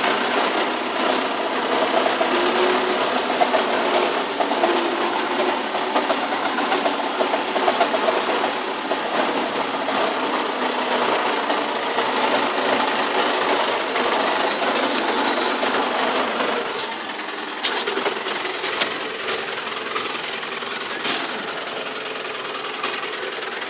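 Belarus 920 tractor's four-cylinder diesel engine running steadily under load while pulling a plough, with a busy mechanical rattle. A few sharp clicks come in the second half, and the sound drops slightly in level from about two-thirds through.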